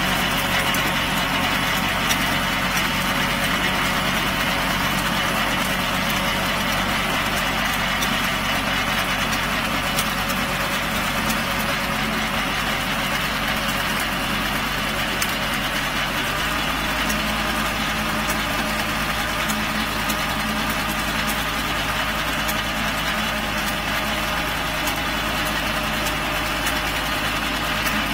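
Small tractor's engine running steadily as it tows a wheel hay rake through dry stubble.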